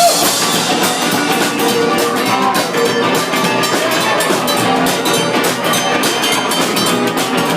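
Live rock and roll band playing an instrumental passage without vocals, the drum kit keeping a steady beat.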